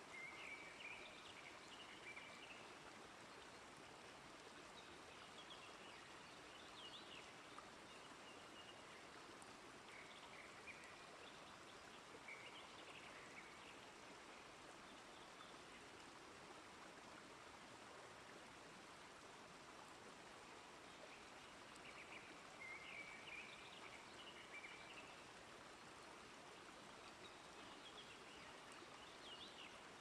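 Faint, steady rush of running water, with small birds chirping in short phrases every few seconds.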